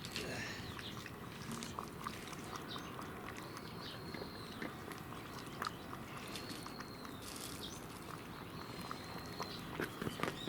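A cat chewing its food, heard as faint small clicks over a low steady background.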